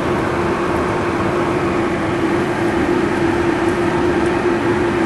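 Steady cockpit noise of a Cessna Citation V Ultra business jet in flight, an even rush of airflow and turbofan engine noise with a steady hum running under it.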